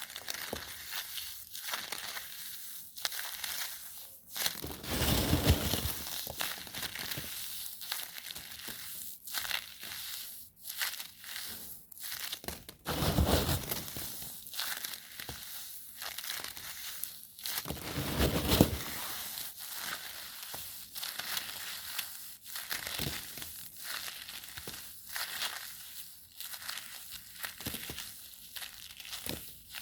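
Close-up crinkling and crackling with many small crackles, broken by three heavier crunching sounds about five, thirteen and eighteen seconds in.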